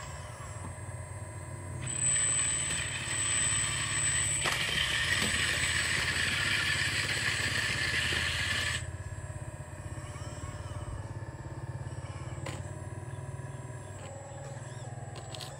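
Hitachi RC hydraulic excavator model with its hydraulic pump running steadily. A louder high hiss with a thin whine rises about two seconds in and stops suddenly near the nine-second mark, and a few small clicks follow.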